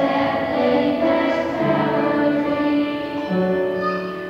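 A group of children singing a song together, holding long notes.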